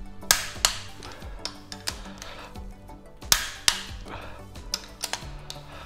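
Non-ratchet click-type torque wrench clicking as the VW cylinder head's ARP stud nuts reach their set torque: a sharp double click a little after the start and another about three seconds later. Background music plays underneath.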